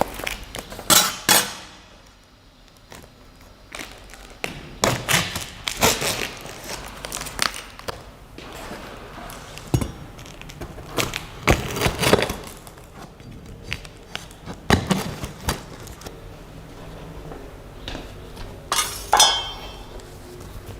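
Unpacking a boxed 3D printer: irregular knocks, clinks and scrapes as parts and packaging are lifted out and set down, with a longer scraping sound near the end.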